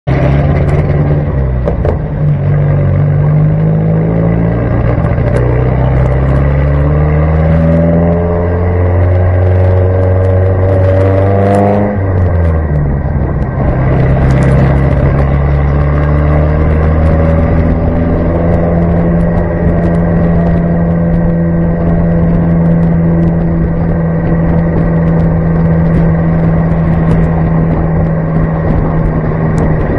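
1965 Datsun Fairlady roadster's four-cylinder engine pulling up through a gear, its pitch rising for about ten seconds and dropping suddenly at an upshift about twelve seconds in, then rising again and settling into a steady cruise, with wind and road noise in the open cockpit.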